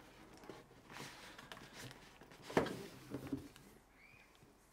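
Cardboard box and packaging being handled: light rustling and small clicks, with one sharp knock about two and a half seconds in.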